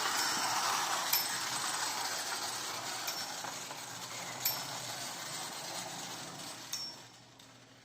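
Clockwork motor of a pre-war Marx Commodore Vanderbilt wind-up toy locomotive whirring as it runs on tin track, with a few sharp clicks, slowing and fading out as the spring runs down, stopping near the end.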